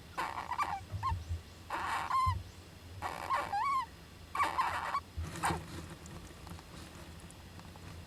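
Young Japanese giant flying squirrel calling: about six short, noisy calls in quick succession, several ending in a squeaky rising-and-falling note, before it falls quieter about five and a half seconds in.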